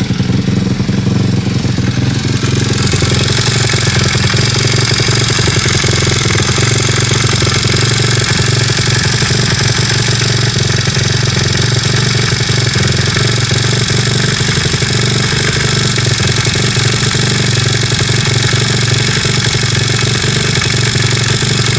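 Kayo pit bike's YX 160cc single-cylinder four-stroke engine running steadily with a knocking that the owner cannot identify.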